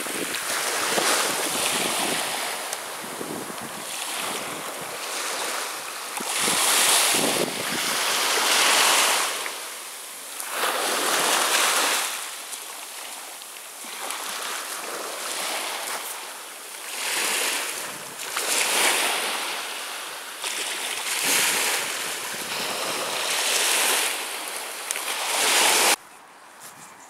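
Surf on a sandy beach: waves breaking and washing up the sand, a rushing noise that swells and fades every couple of seconds. About a second before the end it cuts off abruptly to a much quieter background.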